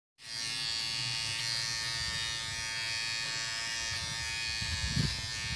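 Cordless electric hair trimmer running with a steady buzz while trimming a child's hair. There is a brief low bump about five seconds in.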